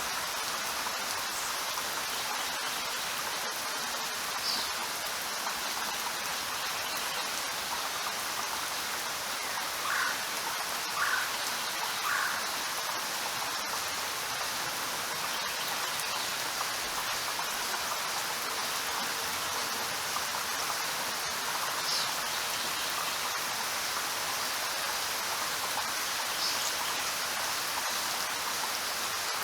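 Steady rain falling, an even hiss of many drops. A few brief, sharper sounds stand out over it a handful of times.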